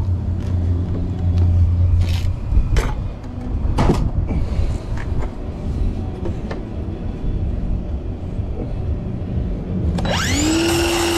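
A few sharp knocks as the board and saw are handled, then about ten seconds in a Craftsman circular saw's motor starts, rising in a quick whine to full speed.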